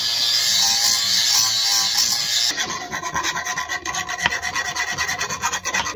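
Angle grinder running against an exhaust pipe clamped in a vise, then stopping about two and a half seconds in, followed by a round file rasping back and forth inside the pipe's end in quick strokes.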